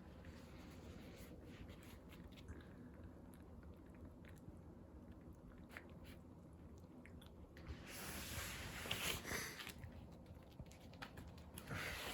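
Shiba puppy's faint mouth sounds, small clicks like chewing or licking, with a louder noisy stretch about eight seconds in and again near the end.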